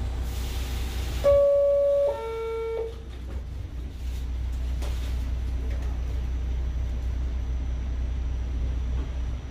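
A horn sounds two steady notes about a second in, a higher one for most of a second and then a lower one, over a steady low rumble.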